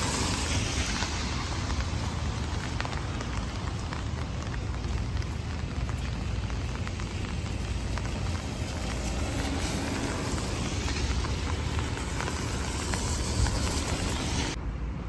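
Steady heavy rain falling on wet pavement, with the low rumble of traffic on the wet road. The rain noise cuts off suddenly near the end.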